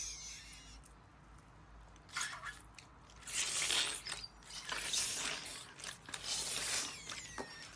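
Clear pink slime with foam cubes in it being squeezed and pressed by hand. It gives several short, crisp squishing bursts, the first about two seconds in.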